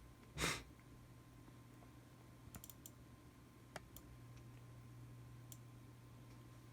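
Scattered light clicks of computer keys or buttons, a few in quick succession near the three-second mark and single ones later, over a low steady hum. A short, louder rush of noise comes about half a second in.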